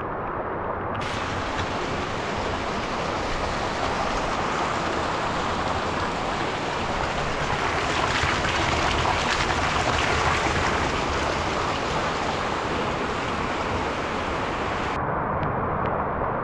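Steady rain with rainwater gushing from a roof pipe and splashing into a full barrel. The splashing is loudest around the middle.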